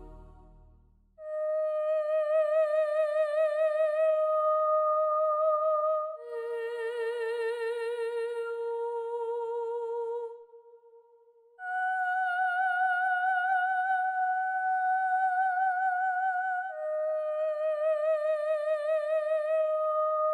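Background music: a slow melody of long held notes with a wavering vibrato, like a wordless hummed voice or theremin, with a short pause about halfway.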